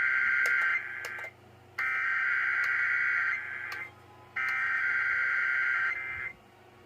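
Emergency Alert System SAME header: three bursts of buzzy two-tone digital data, each about two seconds long with short gaps between them, opening a radio station's required weekly test.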